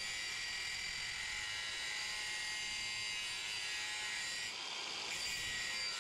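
Makita angle grinder running with a steady high-pitched whine as its thin disc grinds along the side of a scored groove in a stainless-steel baseboard, easing briefly about four and a half seconds in.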